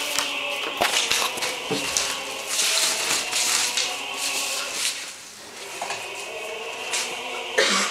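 Crinkling rustle of a black plastic trash-bag kite being swung about, over music with a choir.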